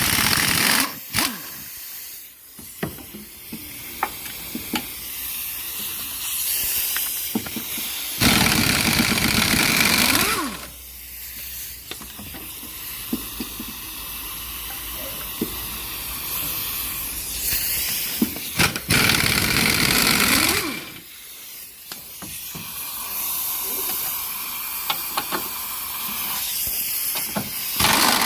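Impact wrench rattling in several bursts of two to three seconds while undoing the engine mount bolts, with clicks and tool handling between the bursts.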